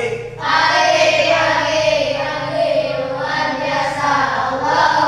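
A group of children singing together in unison, long held notes.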